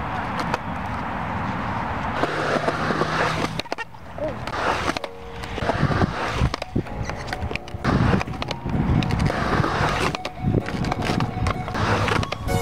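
Skateboard with 52 mm wheels rolling on a concrete park surface, with several sharp knocks and clacks from the board along the way.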